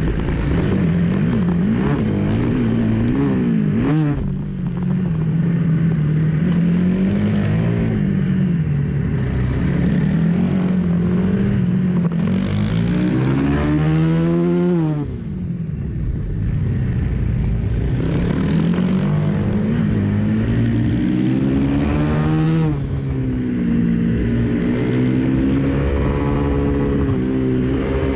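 Supermoto race motorcycle engine under hard racing: revs climb and fall with the gear changes and braking, with two long climbs to high revs, each cut off sharply, and a fresh climb near the end.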